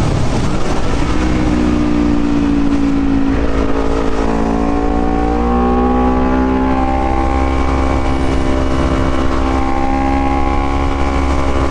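Honda CBR250RR motorcycle engine running under way, its pitch climbing slowly and steadily as the bike accelerates.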